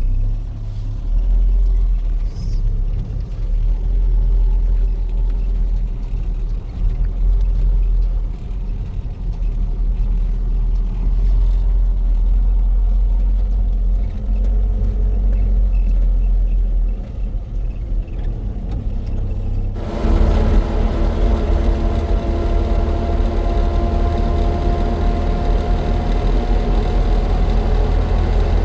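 Motor vehicle running, heard as a steady low rumble. About 20 seconds in it cuts abruptly to a louder stretch with a steady engine hum that rises slightly in pitch.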